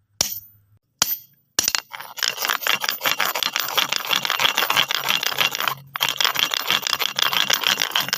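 Stones clacking together: two sharp single knocks, then about a second and a half in a continuous rattling and scraping of many pebbles rubbing against one another, broken by one short pause.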